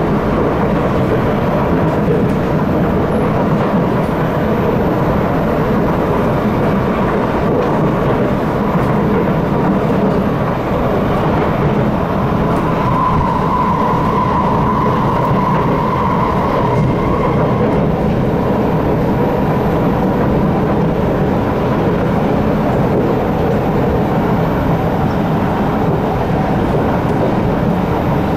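Steady running noise of a C751B MRT train at speed, heard inside the carriage. A brighter tone rises over it for a few seconds about halfway through, as a train passes on the opposite track.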